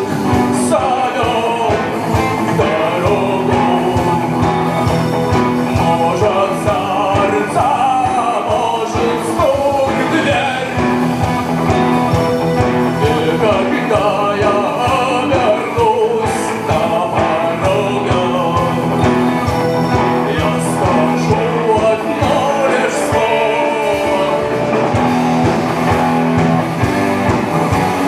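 Rock song with a singer over guitars, bass and a steady drum beat.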